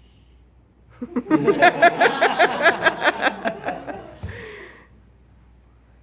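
A person laughing loudly close to the microphone: a run of quick, evenly spaced pulses, about five a second, lasting about three seconds and then fading out.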